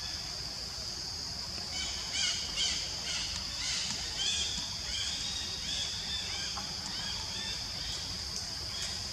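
Outdoor forest ambience: a steady high-pitched drone, with a run of short, falling chirping calls from an animal repeating every half second or so from about two seconds in until near the end.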